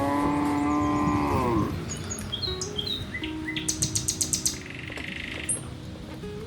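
A cow mooing once: a long call of about two seconds that drops in pitch as it ends. Bird chirps and a quick chirping trill follow.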